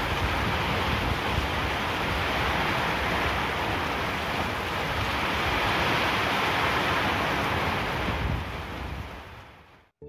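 Heavy downpour: the steady hiss of rain, fading out near the end.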